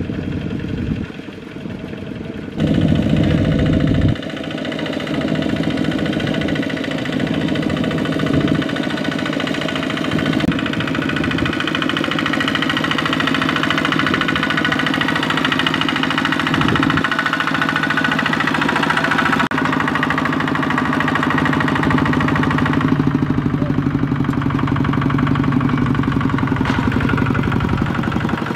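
Single-cylinder Kubota diesel engine of a two-wheel walking tractor running hard with a fast, even knocking beat as it drives through deep mud. Its pitch and loudness change abruptly a few times.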